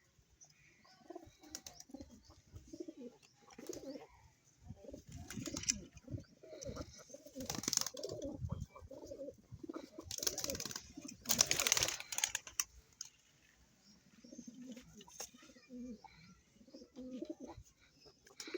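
Pigeons or doves cooing, many short low calls overlapping through most of the stretch. Several louder rustling bursts sound around the middle.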